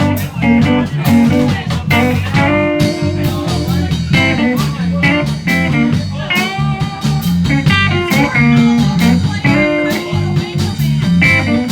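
Live blues band playing an instrumental passage between sung lines: guitar lines over a steady bass and drum beat.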